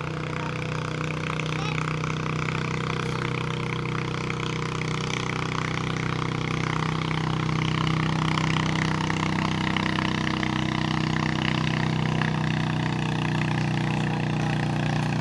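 Small engine running steadily at a constant speed, a little louder from about halfway through.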